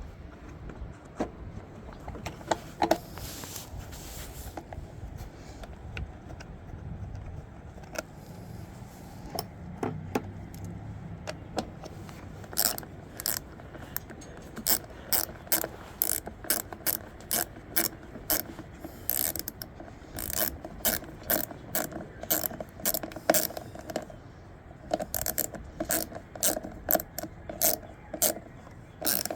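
Hand ratchet wrench clicking in short runs of rapid clicks with pauses between, sparse at first and busiest in the second half, as fasteners on a lawnmower are worked.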